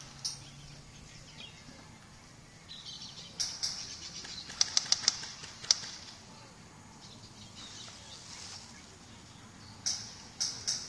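Airsoft guns firing in short strings of sharp snaps: a quick run of about five a little before the middle, another single shot soon after, and a few more near the end, over faint rustling.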